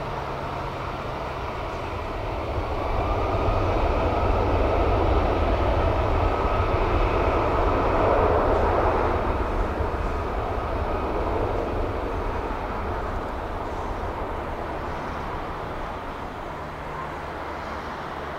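Airbus A340-600's four Rolls-Royce Trent 500 jet engines running as the airliner rolls along the runway. The rushing jet noise swells a few seconds in, peaks, then slowly fades as the aircraft moves away.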